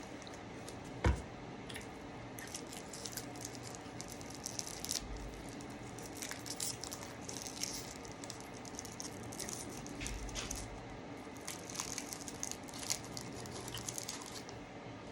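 Candy packaging crinkling and rustling in the hands in a series of short crackles, with one sharp click about a second in.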